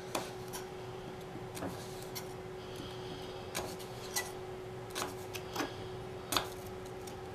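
Kitchen knife cutting a baking potato into fry strips on a wooden butcher-block board: about nine sharp, unevenly spaced taps as the blade goes through and meets the board. A faint steady hum runs underneath.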